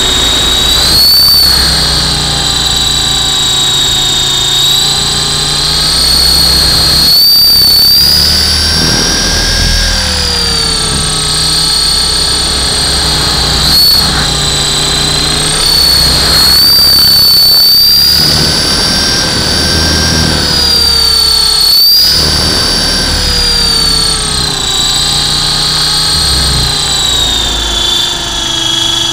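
Model Hughes 300 RC helicopter in flight, heard from on board: a loud, high motor whine with the rotor running, its pitch wavering up and down.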